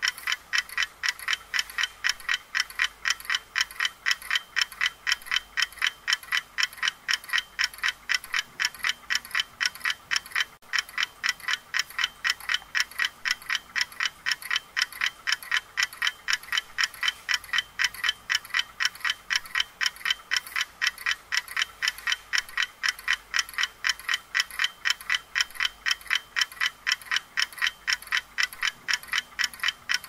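Clock ticking in a steady, even rhythm of sharp ticks, about three a second.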